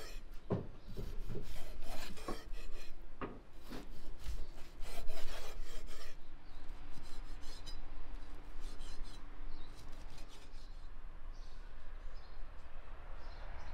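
A wide-bladed knife slicing raw meat on a wooden chopping board: a run of quick scraping cuts, each ending in a knock on the wood, densest and loudest in the first half and fainter after that.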